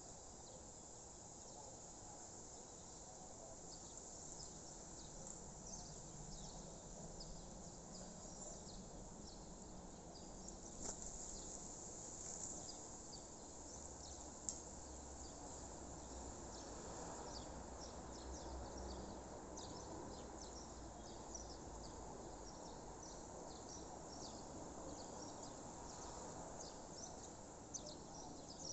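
Faint outdoor nature ambience: a dense, irregular chorus of short high-pitched chirps over a soft background hiss, with a single sharp click about halfway through.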